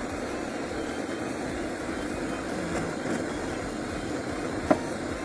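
Handheld butane flame-gun torch on a cassette gas canister burning with a steady, even hiss. One sharp click near the end.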